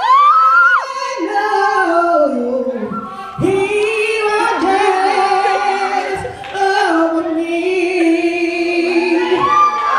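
A man's voice singing without words spoken in between, holding long notes, with a high note sliding up at the start and another long held note near the end.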